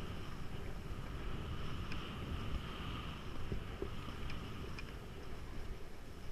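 Wind rushing over a body-worn camera's microphone as a skier glides downhill, with the skis hissing steadily over groomed snow.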